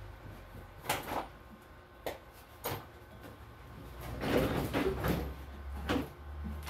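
A few separate knocks and clunks, with a short spell of clattering about four to five seconds in, over a low steady hum.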